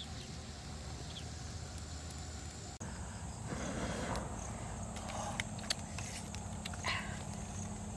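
Rustling and a few short, sharp knocks of sticks of firewood being handled at a small wood fire, over a faint steady background noise.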